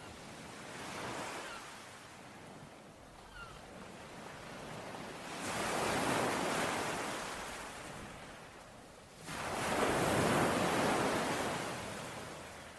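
Ocean waves breaking and washing up the shore, with two large waves surging in about five and nine seconds in and a smaller one near the start. A faint short bird chirp about three seconds in.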